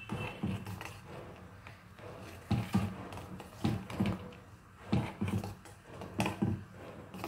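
A metal spoon stirring milk in a steel pot, knocking and scraping against the pot at irregular intervals, with the knocks coming more often in the second half.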